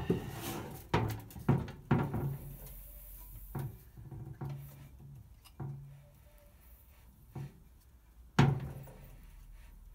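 A string of separate knocks and clunks as a Citroën 2CV flat-twin engine is handled and turned by hand on a workbench. A short low ring follows some of them, and the loudest clunk comes near the end.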